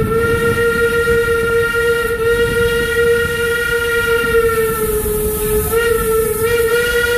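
Steam locomotive whistle blowing one long steady note, sagging a little in pitch about five seconds in, over the low rumble of the train running.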